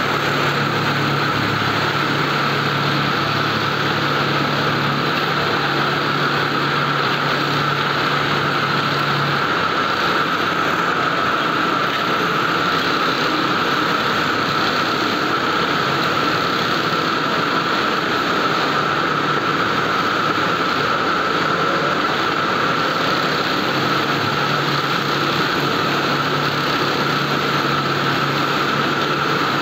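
Steady mechanical drone of heavy-duty industrial sewing machines and their motors running on a bulk-bag sewing floor. A low hum drops out about a third of the way through and comes back in the last quarter.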